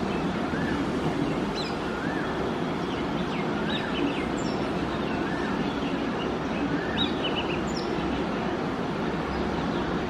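Oriental magpie-robin singing: a short rising-and-falling whistle repeated about every second and a half, with sharp high chirps between. A steady low rumble of background noise runs under it and is the loudest thing in the mix.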